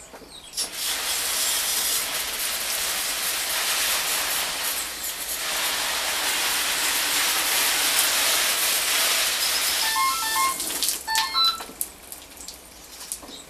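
Garden hose spray nozzle spraying a jet of water: a steady hiss that starts about a second in, briefly weakens around the middle, and cuts off a few seconds before the end.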